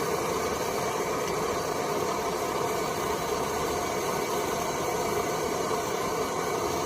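Steady rushing roar of vintage pressurized liquid-fuel camp stove burners, with the freshly primed Optimus not yet lit cleanly.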